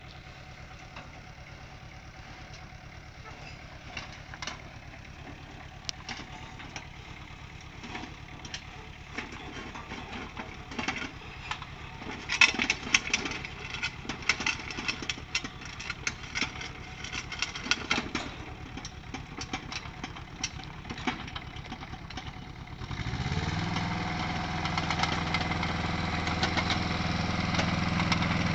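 Yanmar SV08 mini excavator's small diesel engine idling while it drives down aluminium loading ramps, with many knocks and clanks of tracks and ramps. About 23 seconds in the engine revs up and runs louder and steady as the machine tracks along the road.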